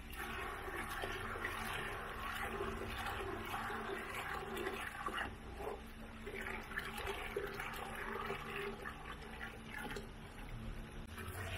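Steady rush of flowing water or liquid.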